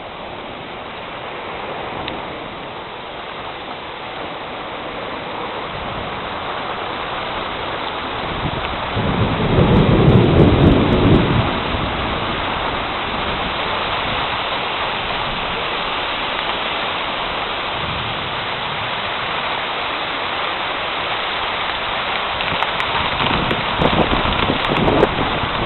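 Heavy rain falling steadily in a thunderstorm, getting louder over the first several seconds, with a loud rumble of thunder lasting about two seconds roughly nine seconds in. A few short sharp knocks near the end.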